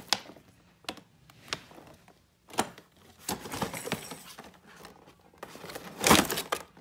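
Gift packaging being handled: crinkling and rustling with scattered clicks and knocks, and a louder rustle about six seconds in.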